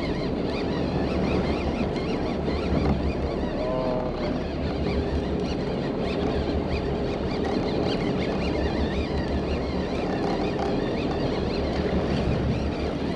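Wind buffeting the microphone and water slapping against the side of a fishing boat, over a low steady hum from the boat. A short pitched call is heard about four seconds in.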